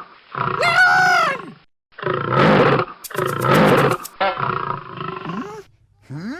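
Big cat roaring: about four loud roars in a row, each about a second long.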